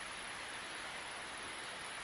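Steady wind ambience: an even, unbroken hiss with no separate events.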